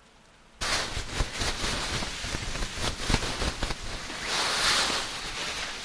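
Heavy snow pelting a camping tarp and tent: a steady shushing hiss full of small ticks as the flakes strike the fabric. It starts abruptly after a brief moment of quiet.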